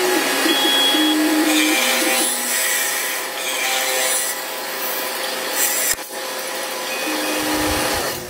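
Wood lathe cutting a spinning wooden disc with a tool-post cutter: a loud, steady hiss of shaving wood, with a short click about six seconds in.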